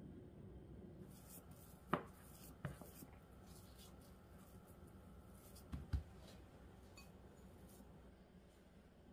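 A silicone spatula mashing and stirring softened butter with brown sugar and cinnamon in a small glass bowl: faint scraping with a few sharp clicks of the spatula against the glass, a couple about two seconds in and a close pair around six seconds.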